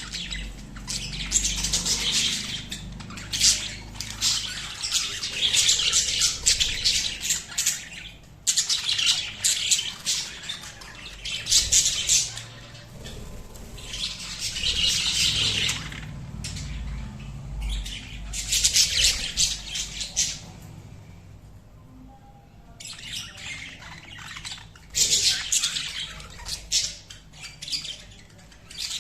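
Pet budgerigars chattering in busy spells of a few seconds each, with a quieter stretch a little past the middle.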